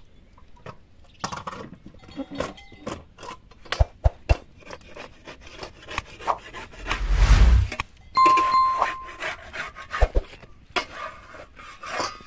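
Metal spatula scraping and clinking against an iron griddle as flatbread is lifted and turned, with irregular small knocks throughout. About seven seconds in there is a loud rush of noise with a low rumble, followed by a brief ringing tone.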